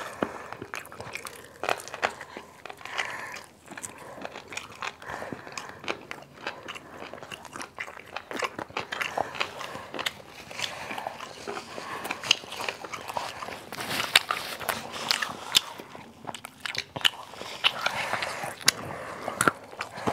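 Close-miked eating of fried chicken: the crisp coating bitten and pulled apart by hand and the meat chewed, heard as irregular crunches and clicks throughout.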